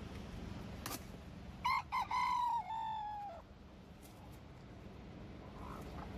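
A gamefowl rooster crowing once: a few short notes, then a long held note that drops away at the end. A sharp click comes about a second before it.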